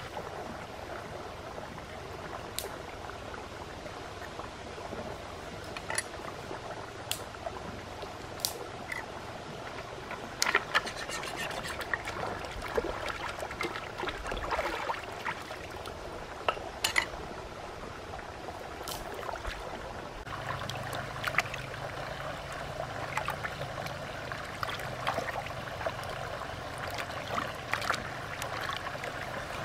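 Splashing and sloshing as fish are washed by hand in a shallow stream, over the steady wash of running water, with scattered short sharp splashes or clicks.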